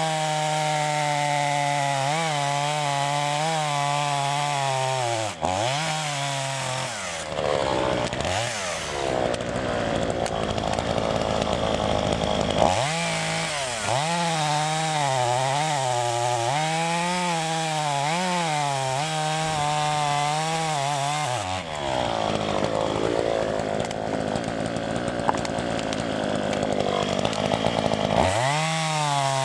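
Two-stroke chainsaw running at high revs while ripping lengthwise along the grain of an oak log. The engine note sags and recovers again and again as the chain bites, with long stretches where a rough cutting noise covers it.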